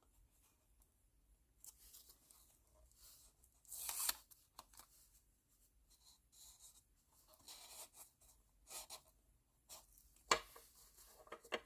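Faint rustling and a few light clicks from hands adjusting an ornament ball and tape on a craft base, with a louder rustle about four seconds in and a sharp click near the end.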